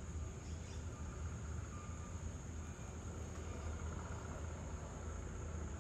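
Steady outdoor ambience: a constant low rumble with a thin, steady high-pitched drone above it and a few faint short chirps.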